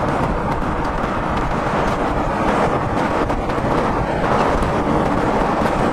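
Steady rumble of a moving vehicle ridden in, with wind buffeting the microphone.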